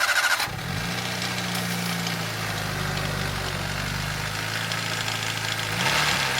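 Daihatsu Copen L880K's JB-DET turbocharged four-cylinder engine running at idle with a rattling (jara-jara) noise: the timing chain is so slack it is close to coming off. The engine speed wavers near the end.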